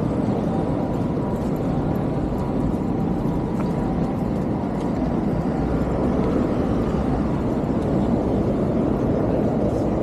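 Steady city street noise of road traffic passing.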